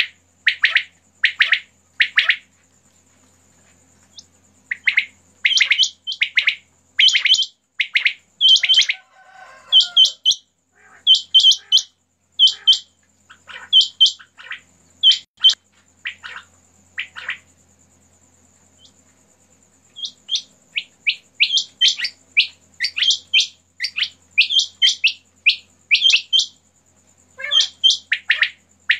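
Several caged common quails (batair) calling, short sharp notes repeated in quick runs with the birds overlapping. The calling pauses twice for a few seconds, about three seconds in and again after about seventeen seconds. A faint steady high whine runs underneath.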